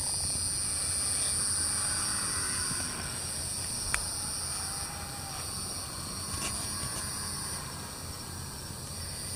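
Steady chorus of insects, a high-pitched drone, over a low rumble, with a single sharp click about four seconds in.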